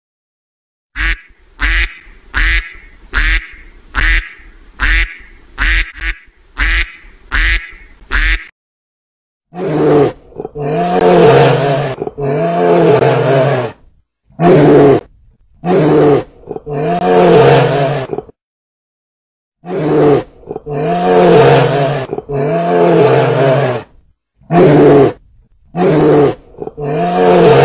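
A duck quacking about eleven times in quick succession, each quack short and loud. Then a brown bear gives long, deep calls about eight times, each one to two and a half seconds long with short pauses between.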